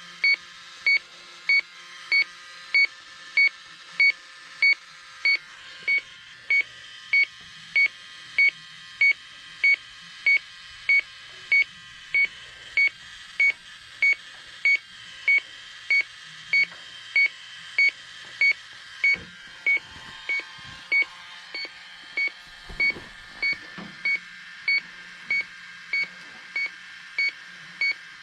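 Electronic refrigerant leak detector beeping at a steady pace, about three short high beeps every two seconds, while it is swept for a freon leak. The even rate means it is not picking up a leak here.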